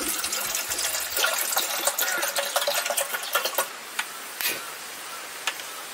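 Water poured from a plastic bottle into an ALOCS camping kettle, splashing and gurgling for nearly four seconds. Then the portable gas stove is lit: a few sharp clicks from the igniter knob and a steady hiss from the burner.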